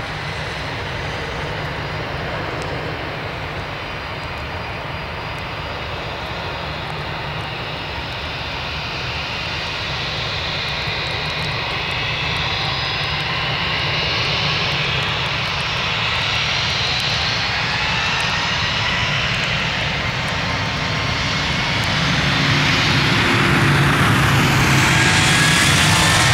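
Airbus A320 jet engines running as the airliner taxis and lines up, with whining tones that rise in pitch. The sound grows louder about three quarters of the way through as the engines spool up for takeoff.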